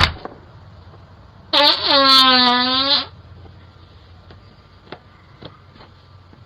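A long, buzzy fart at a steady pitch, about a second and a half long, starting about a second and a half in, followed by a few faint clicks.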